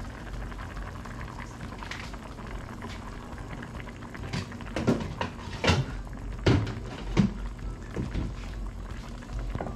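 Curry goat stew boiling in an uncovered frying pan over a gas burner: steady bubbling, with a string of sharp louder pops from about four to eight seconds in.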